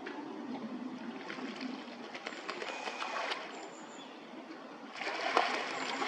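Water splashing from ducks, likely northern shovelers, moving in the pond. It comes in two bouts of crackly splashing, one from about a second in, and a louder one near the end.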